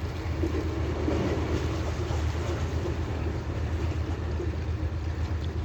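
A steady low rumble under an even wash of wind noise.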